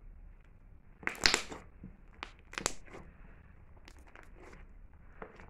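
Slime being squeezed and kneaded by hand, giving sharp crackling pops: a dense burst about a second in, a couple more near the middle, and scattered fainter pops towards the end.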